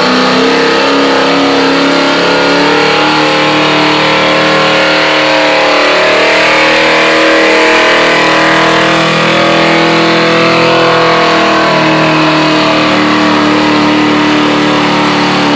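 Ford pickup's engine held at full throttle while dragging a weight-transfer pulling sled down the track. Its pitch wavers up and down slightly as the load builds.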